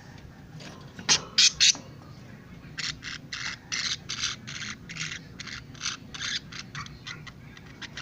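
Budgerigars calling: three loud, sharp squawks about a second in, then a run of rapid chirps.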